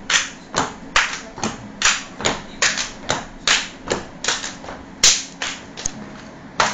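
Hand claps keeping a steady beat, about two and a half a second, each one short and sharp, with one louder clap about five seconds in.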